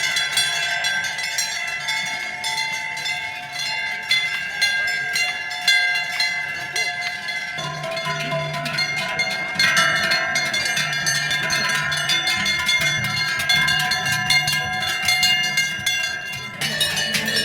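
Many large cowbells on cattle clanging continuously and irregularly as the herd walks by, their clangs overlapping into a dense ringing din.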